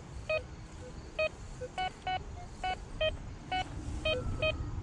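GreenRex metal detector giving short, repeated target beeps, about two a second, as its coil is swept back and forth over a buried metal target.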